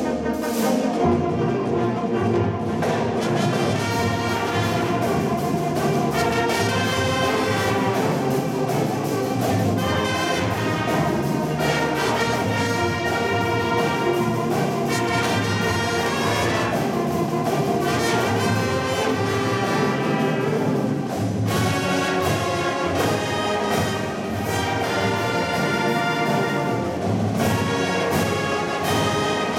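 High school marching band playing, led by its brass section in loud, sustained full chords, with occasional sharp percussion hits.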